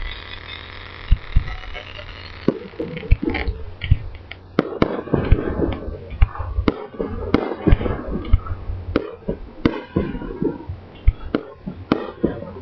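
Fireworks display: aerial shells bursting in a series of sharp bangs, a few at first, then coming thick and fast from about four seconds in.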